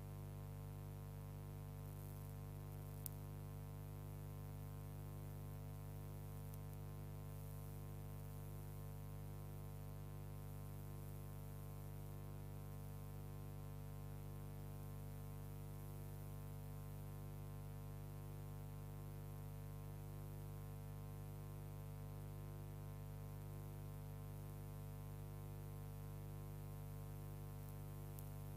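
Steady electrical mains hum with a stack of even overtones, unchanging throughout, with a single faint click about three seconds in.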